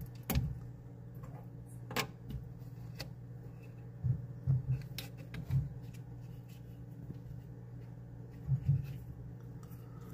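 Bambu Lab H2D 0.6 mm hotend being pushed into the toolhead by hand: scattered sharp plastic-and-metal clicks and a few dull knocks as it is seated and latched, over a steady low hum.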